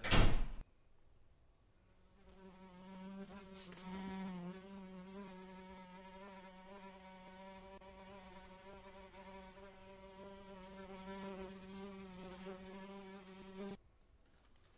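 A brief loud thump at the very start, then a bluebottle fly buzzing in flight: a steady, slightly wavering drone that swells about four seconds in and cuts off abruptly near the end as the fly lands.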